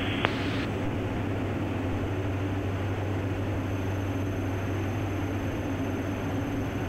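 Steady in-flight cabin drone of the Diamond DA-42NG's twin Austro turbodiesel engines and propellers: a constant low hum under an even hiss. A single short click comes just after the start.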